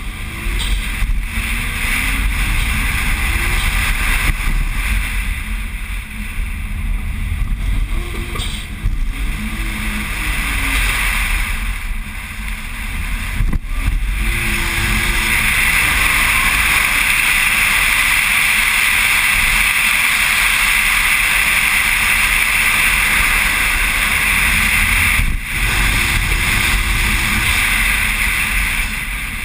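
Car being driven at speed: wind rushing over a camera mounted on the bonnet, over a low engine rumble whose note rises and falls briefly a few times. The rush is loudest and steadiest from about halfway until a dip near the end.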